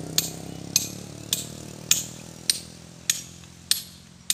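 Steady blows of a hand hammer on steel while splitting stone by hand. Each blow is a sharp, ringing metallic clink, coming about every 0.6 seconds, eight times.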